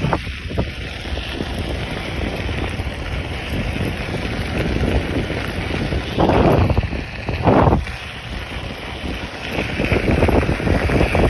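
Wind buffeting the microphone over the steady rumble of an MBS Atom mountain board's pneumatic tyres rolling on a gravel dirt path, with two louder swells about six and seven and a half seconds in.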